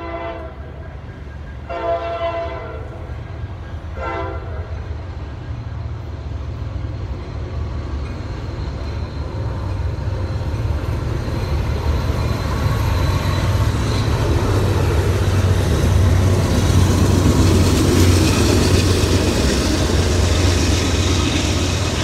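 A diesel locomotive horn sounds three blasts, short, long, short, in the first few seconds. Then the rumble of Norfolk Southern diesel freight locomotives builds as they pass close by, with a deep engine drone and wheel-on-rail noise, loudest a little past halfway.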